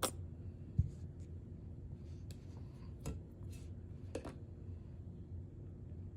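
A few faint taps and clicks over a low steady hum, with a sharper knock just under a second in.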